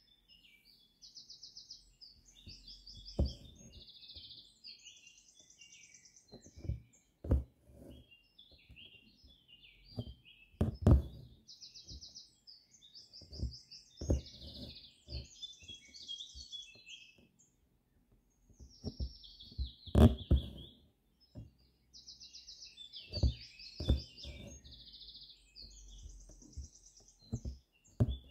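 Songbirds chirping and singing, with buzzy trills that come again every several seconds. Over them, soft knocks and taps every few seconds from a needle being pushed and pulled through fabric stretched taut in an embroidery hoop.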